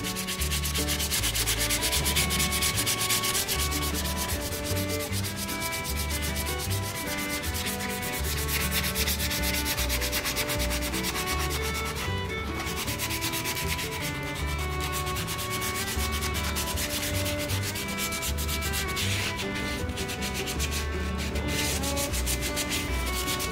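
Food being grated on a hand grater in quick, continuous back-and-forth strokes, with short pauses about 12 and 19 seconds in, over background music with a pulsing bass.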